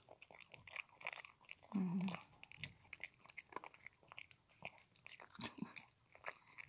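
Small dog crunching and chewing a dry, light dog treat: irregular sharp crunches and mouth clicks at close range. A short low hum is heard about two seconds in.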